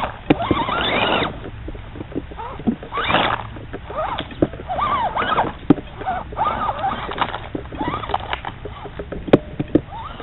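Electric motor and gearbox of a scale RC crawler whining in short bursts that rise and fall in pitch as the throttle is worked, with crackling and snapping of leaves and twigs under the tyres.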